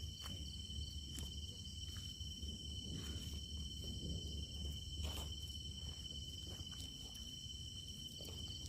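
Crickets trilling steadily in a high, finely pulsing tone, with a low steady hum underneath and a few faint clicks or rustles.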